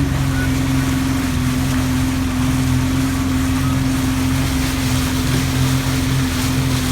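Motorboat engine running steadily at an even pitch, a constant drone.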